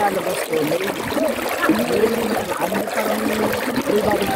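Sea water splashing and trickling around people sitting in it, with water poured from a cup over a head. Voices carry on over the water.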